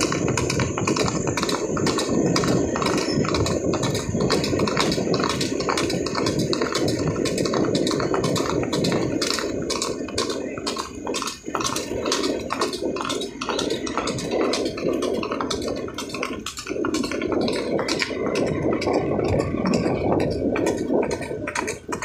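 Horses' hooves striking a paved road in a steady clip-clop of about three beats a second, as the horses trot, over a constant rumble of wind on the microphone.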